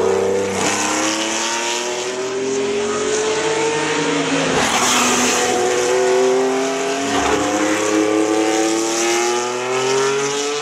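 Ferrari race car engines accelerating hard out of a corner, two cars one after the other. The engine note climbs steadily in pitch and drops back at each upshift, twice in the middle.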